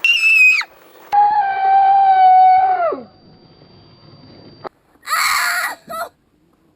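A person screaming: a short shrill scream, then a long wail that drops in pitch as it ends, and a rough shriek about five seconds in, cries as if in pain.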